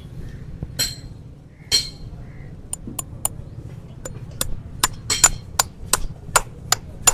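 Farrier's hammer striking metal, likely nailing a horseshoe onto a horse's hoof. Two ringing blows come about a second apart, then a quicker run of about a dozen sharp taps, two to three a second.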